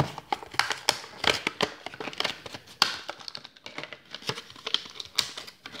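Plastic toy packaging crinkling and crackling in the hands as a small wrapper and clear plastic blister are opened: an irregular run of sharp clicks and rustles.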